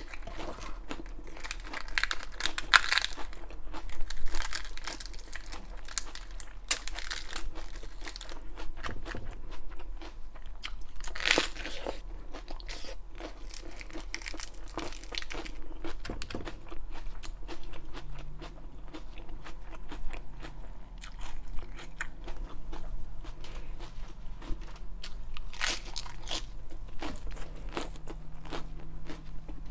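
Raw iceberg lettuce crunching as it is bitten and chewed close to the microphone, in a steady run of crisp crunches with a few louder bites.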